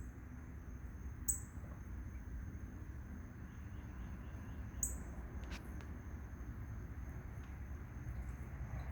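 Two short, high bird chirps, about a second in and again about five seconds in, over a steady high insect drone and a low, even outdoor rumble.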